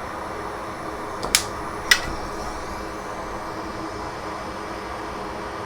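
Steady fan-like hum, with two sharp clicks a little over a second in, about half a second apart.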